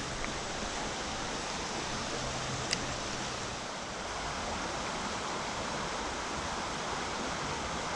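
Creek water running steadily, with one brief click about three seconds in.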